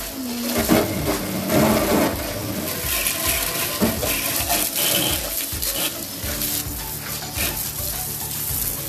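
A jet of water spraying against a tiled outside wall and splashing down, washing off sandstorm dust: a steady rushing spatter.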